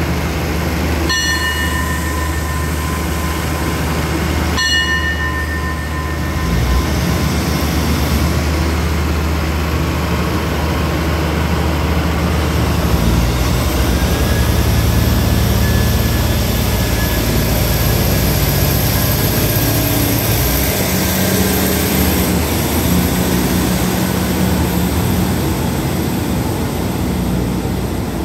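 Diesel railcar train pulling out of the station: its engines run up and shift in pitch several times as it gathers speed, with a rising whine. Two short, high toots sound near the start.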